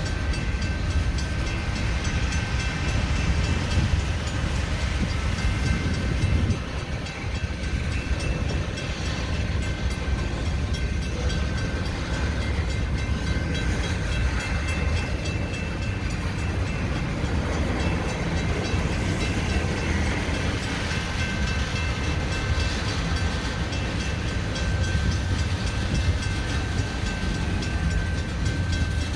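Freight train of covered hopper cars rolling slowly past: a continuous low rumble of steel wheels on rail, with faint steady high-pitched tones running through it.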